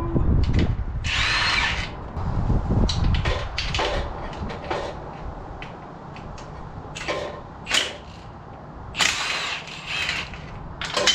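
Power tool spinning bolts out in several short runs, with metal clicks and clinks in between.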